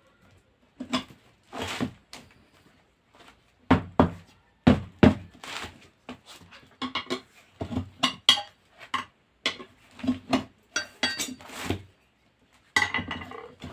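Steel tyre levers clinking and knocking against a motorcycle wheel rim as the tyre bead is pried over the rim edge a little at a time. The clinks come irregularly, a few with a short metallic ring.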